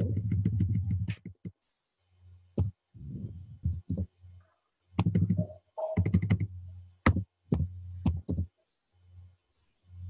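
Computer keyboard keys clicking in scattered taps as text is typed, with a low electrical hum that cuts in and out.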